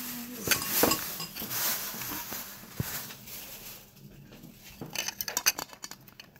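Tableware clinking: chopsticks and stainless steel bowls knocking together in scattered strikes, with a quick run of clinks about five seconds in.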